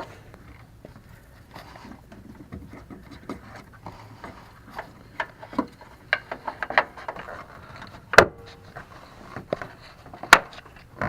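Turn-signal bulb socket being worked back into the light housing: scattered scraping and light knocking as it is twisted around to find the one way it fits, with two sharp clicks near the end.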